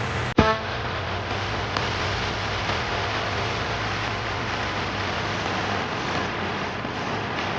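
Steady road traffic noise, an even hiss with a faint low hum. About half a second in comes a sharp click, the loudest moment, followed by a very short pitched blip.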